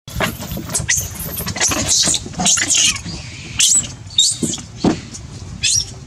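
Macaques squealing and screeching in a run of short, loud, high-pitched calls, several sliding in pitch.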